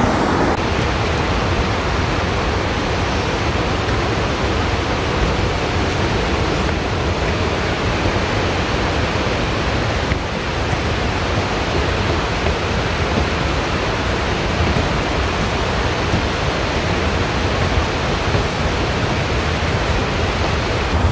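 River rapids and waterfall rushing steadily: an even, unbroken noise of fast water.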